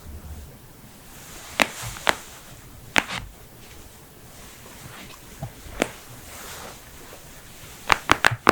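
Human joints cracking: a series of sharp pops, single ones spaced a second or more apart, then three in quick succession near the end.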